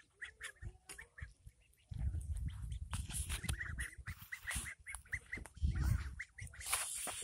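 A flock of domestic ducks giving short, repeated calls. From about two seconds in a low rumble comes in over them and stops shortly before the end.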